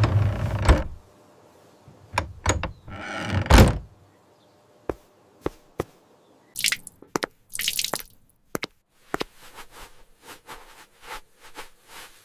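Kitchen handling sounds: a run of knocks, thunks and sharp clicks of utensils, with short hissing, splashy bursts in the middle, like water being poured.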